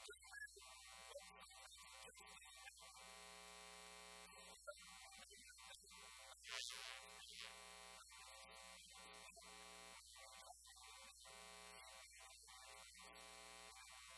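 Near silence with a faint, steady electrical hum, and a brief faint high swish about halfway through.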